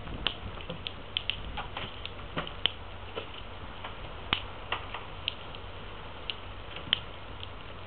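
Irregular light clicks and taps, likely snow boots stepping on wooden porch boards, over a steady low hum.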